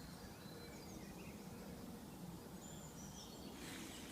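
Faint woodland birdsong: small birds giving scattered short chirps and quick whistled notes over a steady low background noise, with a brief burst of noise near the end.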